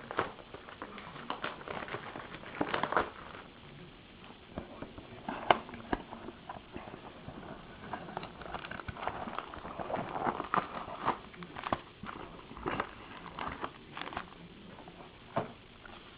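Hands opening a box of Allen & Ginter baseball card packs: scattered light taps and clicks of cardboard, with a stretch of wrapper rustling and crinkling a little past halfway.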